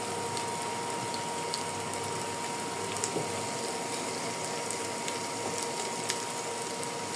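Chopped cabbage, green bell pepper, garlic and purple onion sizzling steadily in hot oil in a pot, with a few small crackles.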